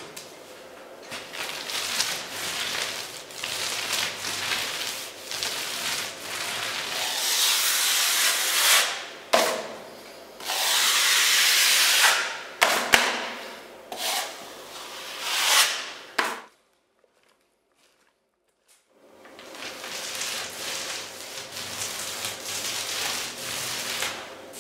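Repeated rubbing and scraping strokes as a roller and a broad filling blade spread and smooth wet ready-mixed filler along a plasterboard wall joint. The sound cuts out completely for a couple of seconds about two-thirds of the way through, then the strokes start again.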